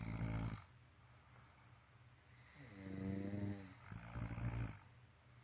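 A sleeping person snoring. The tail of one snore stops about half a second in. After a pause, a longer snore runs from about two and a half seconds in to near the end, pitched at first, then lower and rougher.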